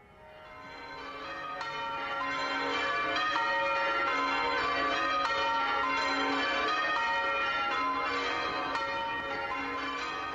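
Church bells pealing, several bells struck one after another and ringing over each other, fading in over the first two seconds and then holding steady.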